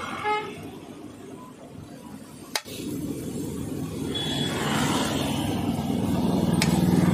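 Street traffic noise, a steady rumble that dips in the middle and rises toward the end. A sharp knock comes about two and a half seconds in, and a fainter one near the end.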